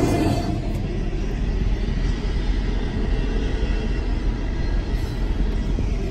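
Double-stack container train's well cars rolling past, a steady rumble of wheels on rail heard from inside a car. The sound turns duller and quieter about half a second in.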